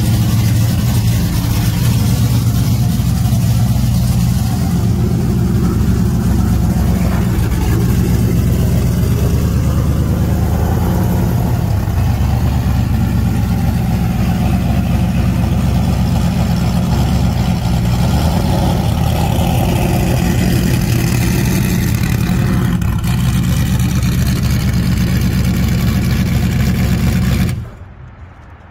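Stadium Super Truck's V8 race engine running loud and steady as the truck is driven out, cutting off suddenly near the end.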